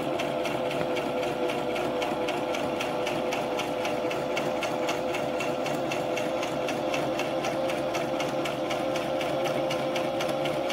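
Brother XM2701 electric sewing machine running at a steady speed while sewing a seam through fabric: an even motor hum with rapid, regular ticking from the needle and feed mechanism.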